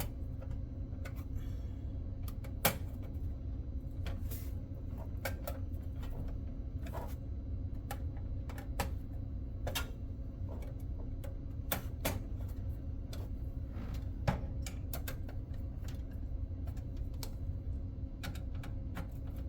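Scattered, irregular clicks and light metal taps of a screwdriver running down motherboard mounting screws, over a steady low hum. Two taps, about three seconds in and near fourteen seconds, stand out louder.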